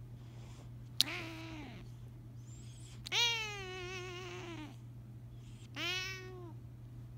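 Domestic cat meowing three times in long drawn-out calls, the owner's 'singing': a short call about a second in, a long wavering one in the middle, and a shorter one near the end.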